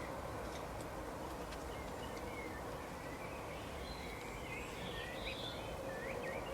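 Small birds chirping in short, scattered calls, busier in the second half, over steady outdoor background noise.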